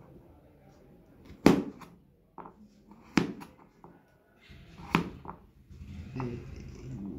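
A few sharp knocks from kitchen work, such as utensils or a knife set down on a wooden board: three loud ones about a second and a half apart, with quieter knocks in between.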